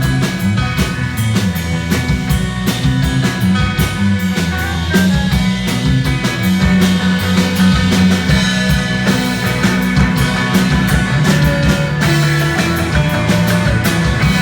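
Rock music with a steady drum beat and sustained bass and guitar notes.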